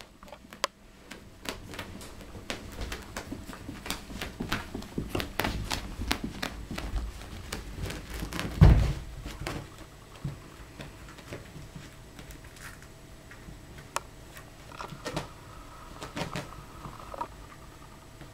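A small puppy playing with a ball and toys on carpet: scattered light taps, knocks and rustles, busiest in the first half, with one loud dull thump about halfway through. A faint thin steady tone sounds for about two seconds near the end.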